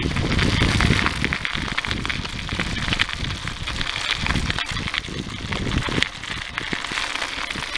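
Wind rushing over a bicycle-mounted camcorder's microphone while riding, a steady rumbling rush with many small clicks and rattles.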